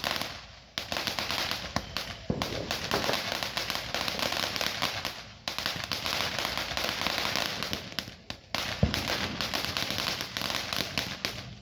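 Blue Ribbon consumer firework crackling, a dense run of rapid small pops that fades in three short lulls and surges back, then cuts off suddenly near the end.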